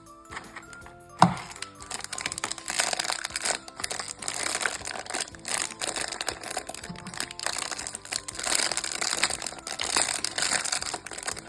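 Plastic wrapping crinkling and crackling as a surprise toy is unwrapped by hand, with a sharp click about a second in, over background music.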